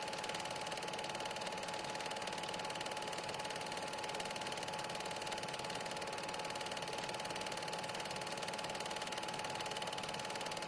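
Super 8 film projector running: a steady, fast mechanical whirr with a constant whine, the machine noise of a silent home film being played back.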